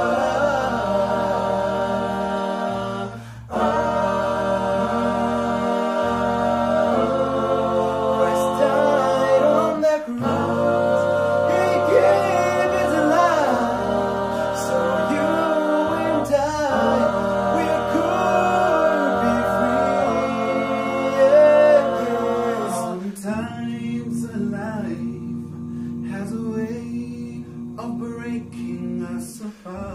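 Male a cappella gospel group singing in close harmony, held chords over a low bass line with a lead voice gliding above. It grows softer about three-quarters of the way through.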